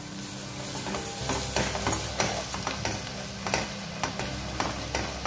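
A steel ladle stirring onion-tomato masala in an aluminium kadai, scraping and knocking against the pan in irregular strokes about twice a second over a soft sizzle.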